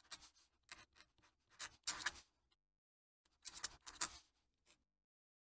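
Fountain pen nib scratching across paper while a cursive signature is written: a run of short, faint scratchy strokes, with a brief pause about halfway through as the pen lifts between words.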